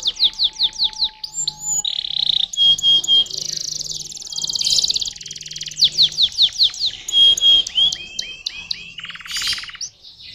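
Domestic canary singing: a long song of fast rolling trills broken by runs of quick falling notes, fading out just before the end.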